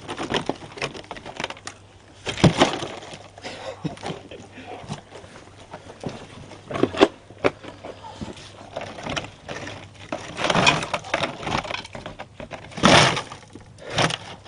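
Wood cracking and crunching in irregular crashes a few seconds apart, the loudest near the end, as wooden debris is thrown down and packed under the stuck excavator's track.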